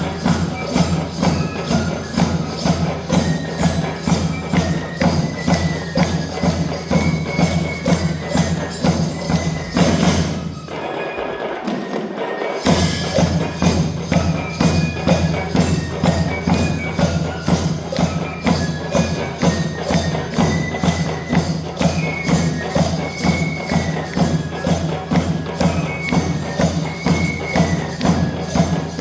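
School drum band playing: a steady, dense drum beat with jingling percussion and a high stepping melody line on top. About ten seconds in, the deep drums drop out for roughly two seconds, then the full band comes back in.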